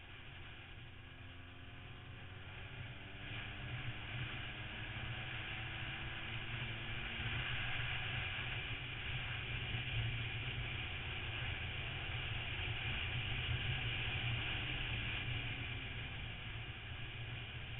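Motorcycle riding at speed, heard through a bike-mounted camera: wind and road noise rush over the microphone, with the engine's note faintly rising in the first few seconds. The rush grows louder from about three seconds in and eases a little near the end.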